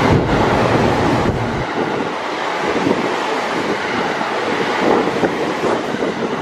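JR West 225 series electric train passing through at speed: a steady rush of wheels on rail and moving air, with its slipstream buffeting the microphone. The deep rumble drops away about a second and a half in as the cars keep streaming by.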